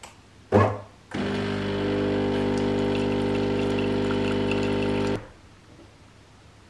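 Bean-to-cup coffee machine brewing. A brief loud mechanical burst comes about half a second in. Then the pump buzzes steadily for about four seconds as coffee runs from the twin spouts into the cup, and cuts off abruptly.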